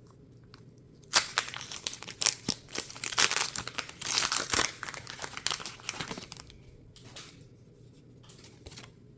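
Foil wrapper of a Pokémon card booster pack being torn open and crinkled. It starts about a second in as a string of crackles and rips, is loudest in the middle, and tails off into a few light crinkles near the end.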